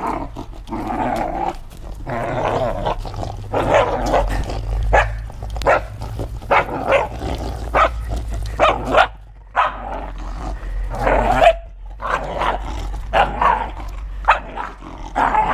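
Belgian Malinois growling and barking in play, in quick short bursts, as it lunges and snaps at a furry toy on a stick.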